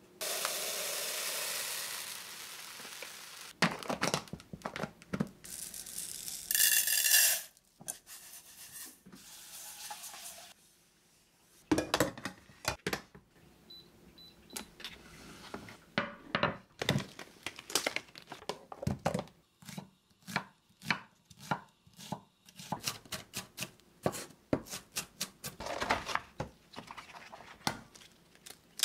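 Kitchen handling sounds: a few seconds of steady rushing noise at the start, then many clicks, taps and knocks of dishes and utensils on a stone counter. About halfway through, a small electric rice cooker gives three faint short beeps as its buttons are pressed.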